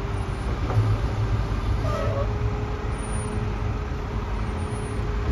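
McNeilus front-loader garbage truck's diesel engine running with a steady low rumble and a faint steady whine, with one short squeak about two seconds in.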